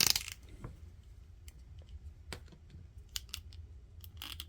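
Light clicks and taps of small hard-plastic action-figure parts being handled and pulled apart, scattered irregularly, with a brief louder rustle right at the start and a louder click near the end.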